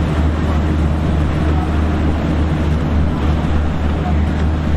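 Motorboat engines running steadily: a constant low hum under a rushing wash of water and wind noise.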